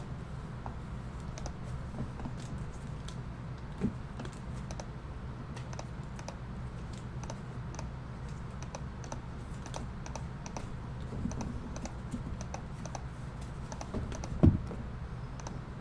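Computer keyboard being typed on: a run of irregular light key clicks over a steady low hum, with a louder knock about four seconds in and another near the end.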